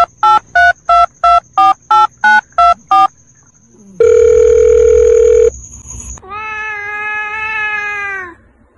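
Telephone keypad dialling tones: ten quick two-pitch beeps at about three a second, then a single long beep lasting about a second and a half. About six seconds in comes a drawn-out pitched call that dips in pitch at the end.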